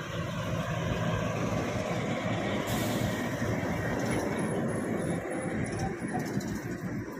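Two heavy diesel tanker trucks driving past close by one after the other: engine rumble and tyre noise on the road, swelling about a second in and easing slightly near the end.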